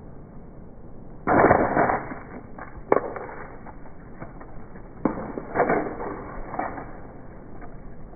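Things being smashed: a sudden crash with breaking and rattling debris, a single sharp crack, then a second crash with more rattling, about four seconds after the first.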